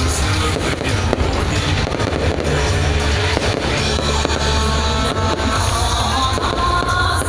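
Fireworks going off, many sharp bangs and crackles, over loud music with a heavy bass.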